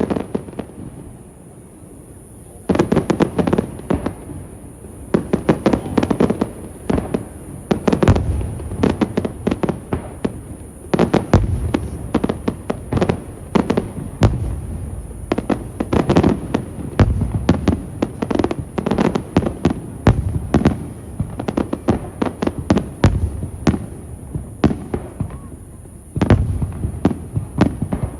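Fireworks display: shells bursting in rapid volleys of sharp bangs and crackles, coming thick and fast from about three seconds in after a brief lull.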